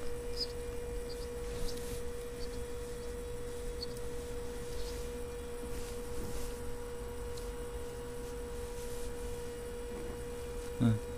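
A steady single-pitch electrical tone over a low hum, with a few faint ticks. Near the end comes one short, louder pitched sound that slides upward.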